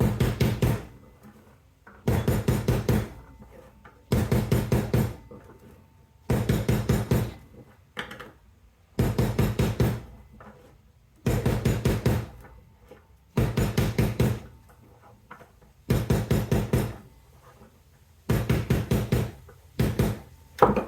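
Rubber mallet rapidly striking a soldered copper-wire ring, in about ten quick runs of blows, each about a second long and coming roughly every two seconds. The hammering work-hardens the copper that the torch softened and flattens the ring.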